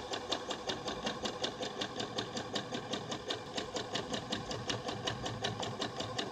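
Sewing machine running steadily, its needle stitching with an even clatter of about six stitches a second as it sews a zig-zag rolled hem along a saree edge.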